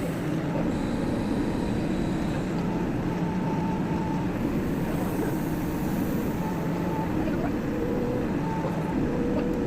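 New Holland backhoe loader's diesel engine running steadily under work, with faint whines coming and going over the rumble.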